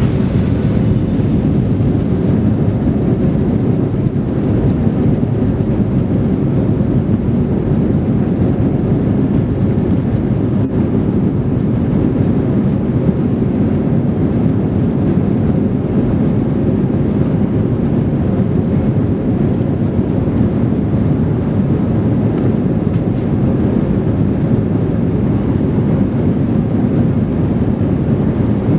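Steady loud roar of a jet airliner's engines and rushing air, heard from inside the passenger cabin during take-off.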